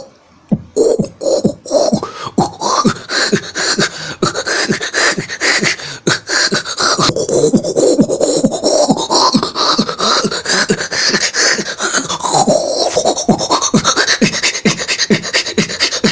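Beatboxed sound effect made entirely with the mouth: a steady train of quick pulses, about four or five a second, under a tone that slowly sweeps up and down several times.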